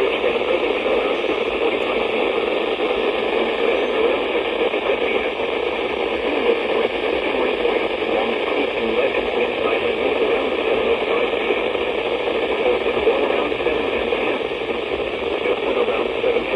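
Weather radio receiver putting out steady static hiss, with no voice: the warning broadcast has cut out in mid-sentence, leaving only the noise of a lost signal.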